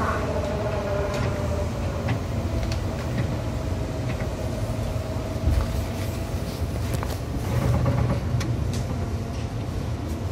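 Seibu Railway Tamako Line electric train, formation 263F, running on the rails: a steady low rumble of wheels on track, with a whine that falls slowly in pitch and a few sharp clicks.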